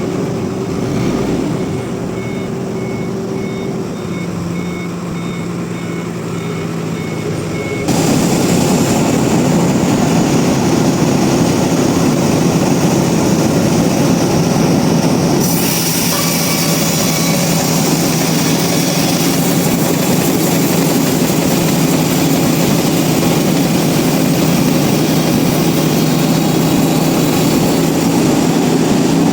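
Sawmill machinery running: an engine hums with a series of short, high, evenly spaced beeps. About eight seconds in it jumps suddenly to a much louder, steady, noisy machine run.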